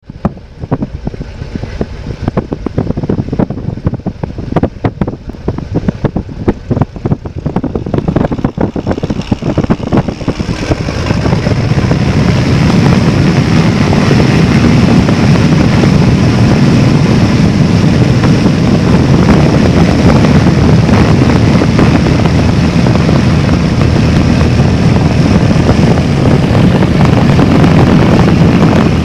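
Wind buffeting the microphone for about the first ten seconds, then a nearby floatplane's piston engine and propeller come up to takeoff power and run loud and steady, with prop-wash spray hissing off the water.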